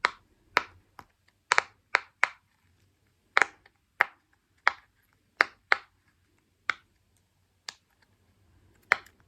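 A plastic fidget toy being worked by hand, giving about fifteen short, sharp clicks at an uneven pace.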